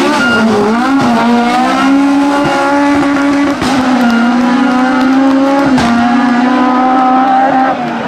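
Fiat 131 rally car's four-cylinder engine accelerating hard out of a corner. The revs climb after a brief dip, then hold high with two short breaks, about a second and a half in from the middle and again near the end, as it changes up and pulls away.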